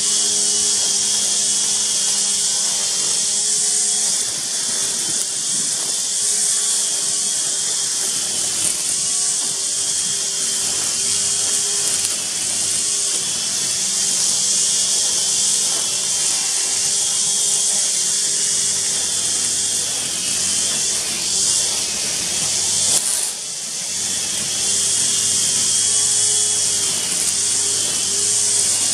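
Motorized string trimmer (brush cutter) running steadily, its pitch repeatedly dipping and recovering about once a second as the cutting head is swept through tall grass and weeds, over a constant high hiss.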